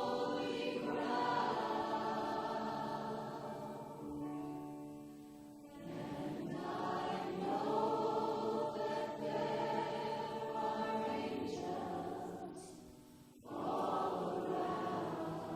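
A church congregation singing a slow worship song together in long held phrases, with short breaks between phrases about six and thirteen seconds in.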